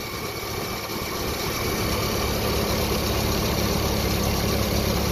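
Jeep Wrangler YJ engine idling steadily, running again after a burnt-out fusible link was replaced; it grows a little louder over the first two seconds.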